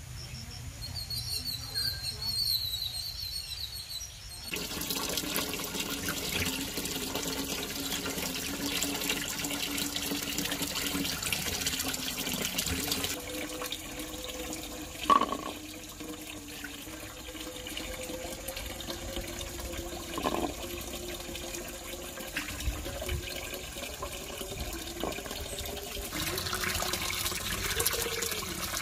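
Birds chirp for the first few seconds. Then water runs steadily from a tap into a clay bowl while lovi fruits are rubbed and washed by hand in it, with a couple of short knocks partway through.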